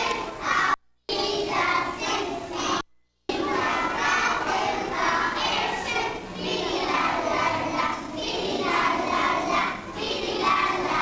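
A group of young children singing together, an action song with gestures. The sound cuts out completely twice, briefly, about a second in and again near three seconds.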